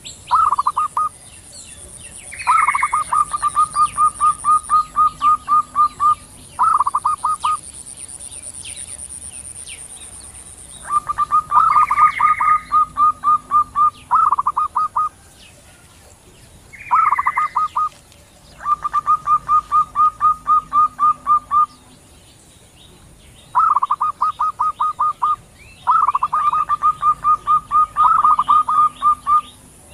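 Male and female zebra doves calling back and forth. Each call is a rapid run of pulsed cooing notes lasting a second to three seconds, and several open with a higher note. The runs repeat about nine times, with short gaps between them. Faint chirps of other birds sound in the gaps.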